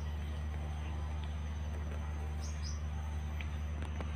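Outdoor ambience: a steady low hum, a thin steady high insect tone, and a bird's quick double chirp about halfway through.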